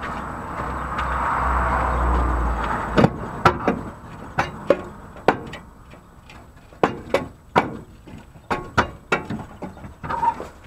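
A steady rumbling noise for about the first three seconds, then a string of sharp, irregularly spaced knocks. The sound is the Dacia's broken exhaust pipe knocking against the underbody as it is moved by hand.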